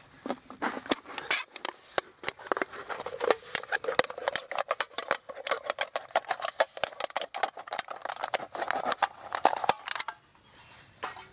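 Knife blade sawing around the base of a thin metal drink can: a fast, irregular crackle of scraping and clicking that stops about ten seconds in.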